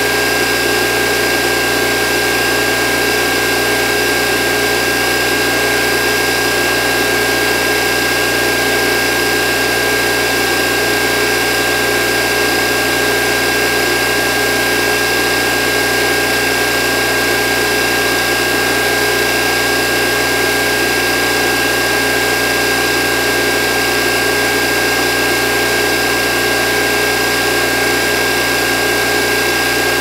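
Electric water motor pump running steadily, a continuous motor whir with a steady high-pitched whine over it and no change in speed.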